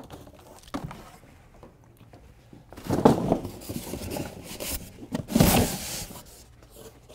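Cardboard boxes and foam packing being handled: two spells of rubbing and scraping, about three seconds in and again around five and a half seconds.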